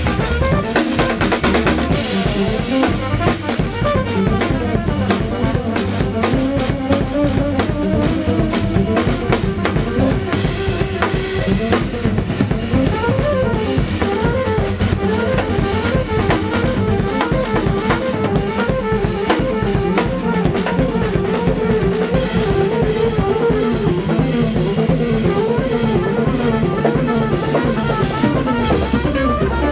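Live jazz jam in 9/8: a drum kit played busily with many quick strokes, under moving bass and electric guitar lines.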